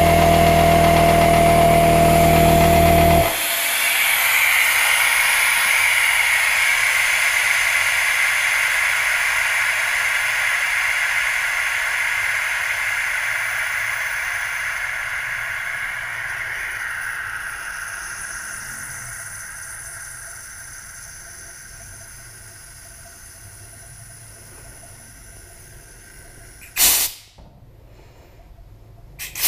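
Coltri high-pressure compressor running, then shutting off abruptly about three seconds in. A steady hiss of compressed air escaping follows and slowly fades over some twenty seconds. A short, sharp burst sounds near the end.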